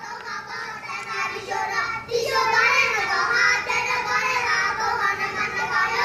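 A group of young schoolchildren singing together in unison, getting louder about two seconds in.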